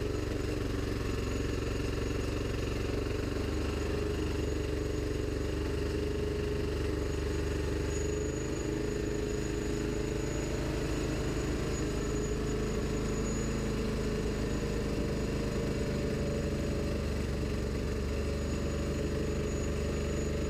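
Honda GX160 single-cylinder four-stroke engine running steadily under electrical load, driving a generator. Its note shifts slightly about eight seconds in.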